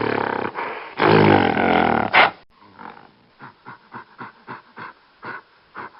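Animal calls: two loud, low, drawn-out calls in the first two seconds, then a run of short grunts, about three a second.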